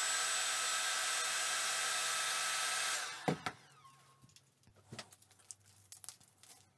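Electric heat gun blowing steadily with a fan whine, switched off about three seconds in. A sharp knock follows as it is put down on the wooden workbench, then light clicks of hands handling a small metal file.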